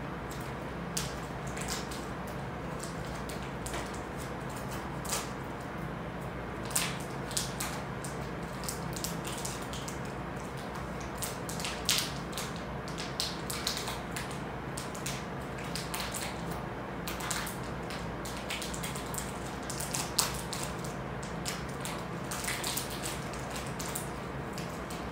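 A child eating at a table: irregular small clicks and crackles from handling food, over a steady low room hum.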